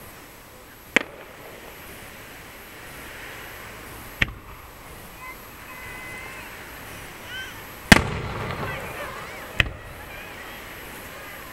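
Aerial firework shells bursting: four sharp bangs a few seconds apart, the loudest about eight seconds in, with a trailing echo.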